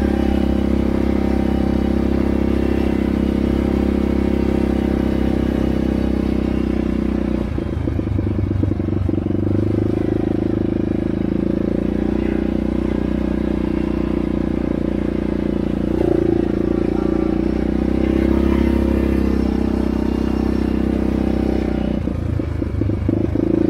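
ATV engine running steadily while riding, with two short stretches of clattering and jolting, about eight seconds in and again near the end.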